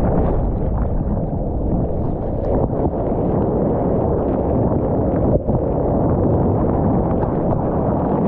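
Loud, steady rush of water and surf with wind buffeting the microphone, briefly dipping about five seconds in.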